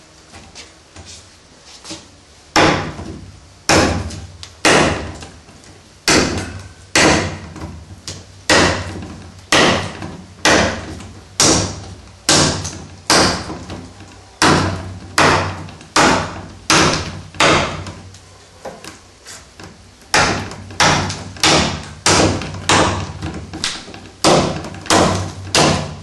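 Fox Trakker, a heavy kukri-style knife with a 24 cm N690Co steel blade, chopping into an upright wooden pole: a sharp woody chop about once a second. The strikes start a couple of seconds in, and a few around two-thirds of the way through are lighter.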